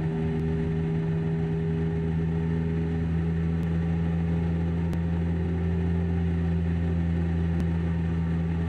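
Cessna 172's piston engine and propeller running steadily at cruise power, heard from inside the cabin.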